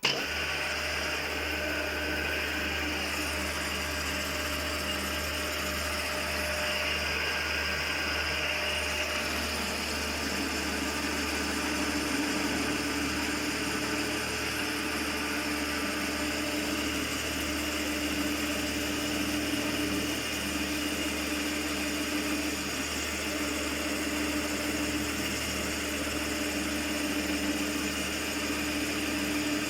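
Milling machine running with its cutter boring a hole in a plate, a steady machine noise that starts abruptly. A pitched tone comes and goes over the low hum from about a third of the way in.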